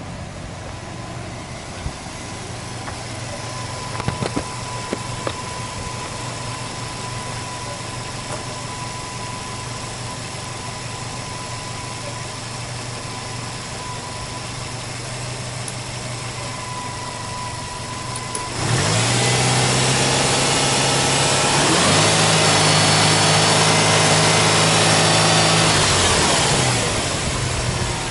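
Subaru Impreza WRX STI's EJ20 turbocharged flat-four idling steadily with a thin steady whine over it. About two-thirds of the way in it is revved and held at raised revs, steps higher a few seconds later, then drops back to idle near the end.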